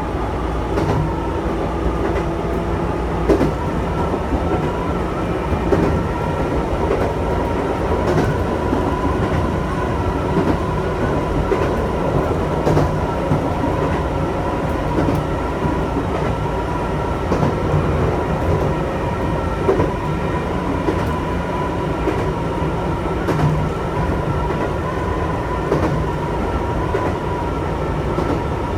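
Chichibu Railway electric train running, heard from inside at the front of the train. A steady rumble with a held whine runs throughout, and the wheels knock over rail joints every few seconds.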